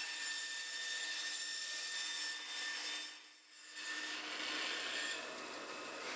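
Band saw cutting through wood, a steady sawing sound with a faint whine in it. It drops away briefly about three and a half seconds in, then resumes.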